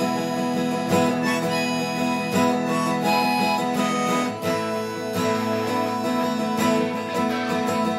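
Harmonica, played from a neck rack, carrying a melody of held notes over a strummed acoustic guitar.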